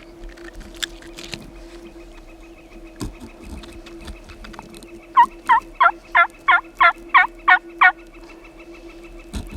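A series of about nine loud turkey yelps, each note dropping in pitch, at roughly three a second, in the second half.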